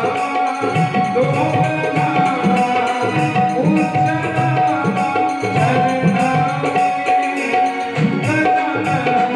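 Devotional bhajan music: tabla keeps a busy rhythm under a melody line, with one note held steadily throughout.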